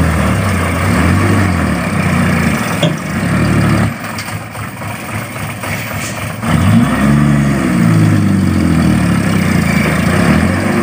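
Loaded dump truck's diesel engine working under load in soft dirt, its note rising and falling; it eases off about four seconds in, then revs up again from about six and a half seconds.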